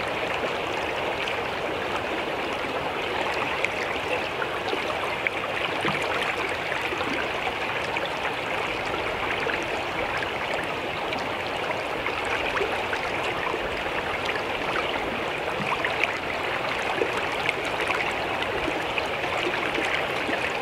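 Shallow stream running steadily, a constant rush of water with faint trickling.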